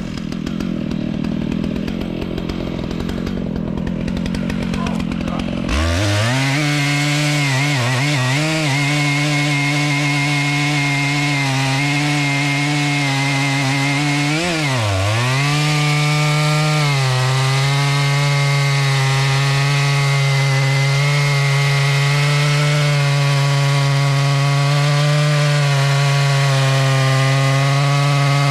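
Stihl MS 881 two-stroke chainsaw with a 50-inch bar cutting big wood: lower and rougher for about the first six seconds, then it jumps to a steady high rev, dipping briefly twice before holding.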